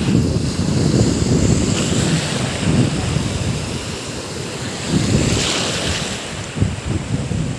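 Strong surf: waves surging and breaking on the shore, with wind buffeting the microphone as a low rumble. A wave swells in at the start and another breaks with a hiss about five seconds in.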